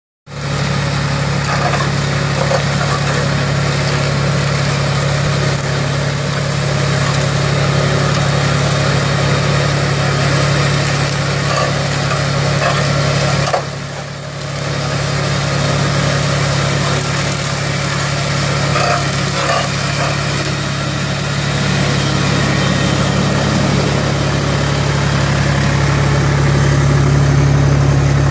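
Vineyard tractor's engine running steadily under load while it drives a hydraulic KMS Rinklin tunnel leaf trimmer along the vine row, with a constant low hum. The sound dips briefly about halfway through.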